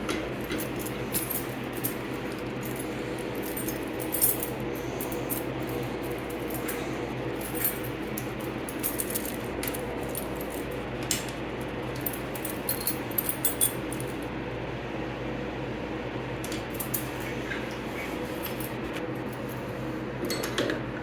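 Keys jingling and small metallic clicks of hand handling, scattered and irregular, over a steady low electrical hum.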